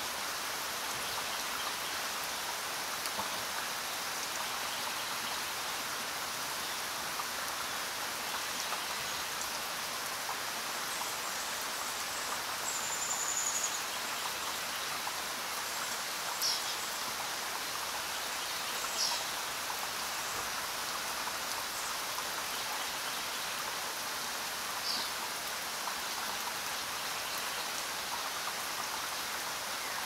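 Steady rain falling, an even hiss with no let-up. A few short high bird chirps break through it now and then.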